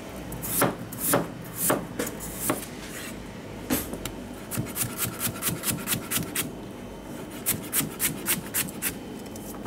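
Chef's knife chopping raw potatoes into sticks on a plastic chopping board: a run of sharp knife strikes, slow at first, then quicker at about three or four a second, with a short pause about seven seconds in.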